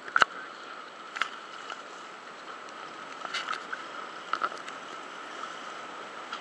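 Steady hum and water wash of a sportfishing boat at the boatside, with a few sharp knocks and clicks; the loudest knock comes right at the start.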